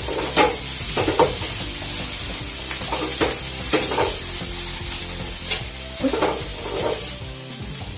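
Fried rice sizzling in a frying pan over a gas burner as it is stir-fried, with a steady hiss. The utensil knocks and scrapes against the pan about nine times at irregular intervals.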